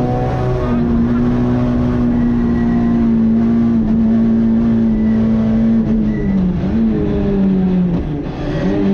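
Citroën C2 R2 rally car's four-cylinder engine heard from on board, held at high revs under load. The engine note breaks off briefly just after the start and dips in pitch about six seconds in and again near the end before climbing back up.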